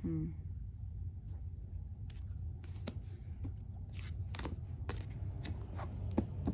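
Tarot cards being handled: a string of light snaps, flicks and slides as cards are drawn off the tops of the decks and laid down on a cloth-covered table, over a steady low hum.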